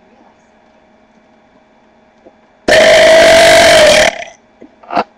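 A man's long, deliberate burp about two and a half seconds in, lasting about a second and a half on one steady pitch, loud enough to clip the microphone. A brief short sound follows near the end.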